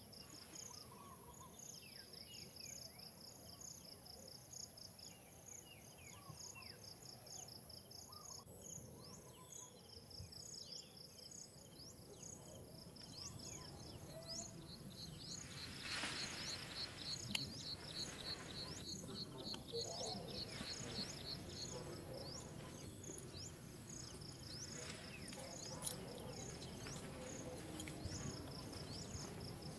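Insects chirping in steady, repeated high-pitched pulse trains, with a constant high whine behind them. A short rush of noise comes about halfway through.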